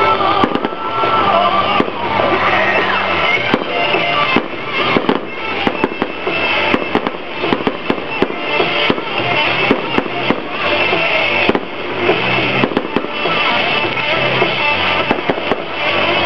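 Aerial fireworks going off in a rapid, irregular string of bangs and crackles, over music playing.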